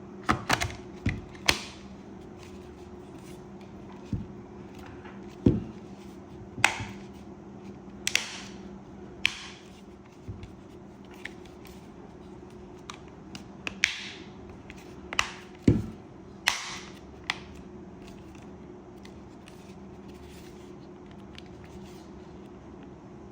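Irregular sharp clicks and taps of small tools and plastic speaker parts being handled during a repair, over a steady low hum.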